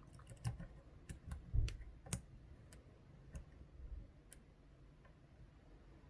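Faint, irregular small clicks of a lock pick and tension wrench working the pins of an ASSA 600 lock cylinder, single pin picking at the last stubborn pin. The clicks thin out and stop after about four and a half seconds.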